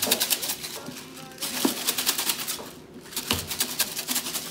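Dry rice grains rattling inside a closed container shaken hard by hand, a fast run of clicks in three bouts with brief pauses between them. The rice is being shaken with vinegar and food colouring to coat it with dye.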